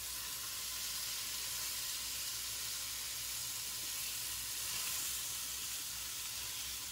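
Two thick beef steaks sizzling steadily in a little olive oil in a nonstick frying pan over a gas burner.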